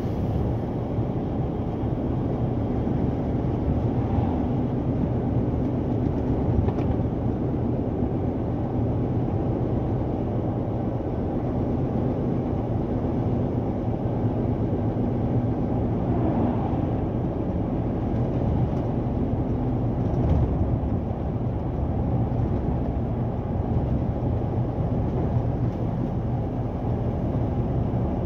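Scania P 360 truck's diesel engine running steadily with road noise, heard inside the cab while cruising.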